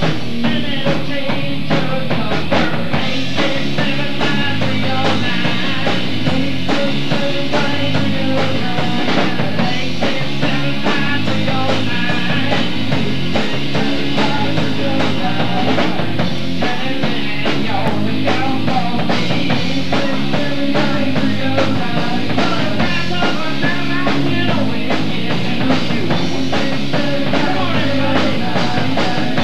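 Live rock band playing loudly and steadily: electric guitars, bass guitar and drum kit.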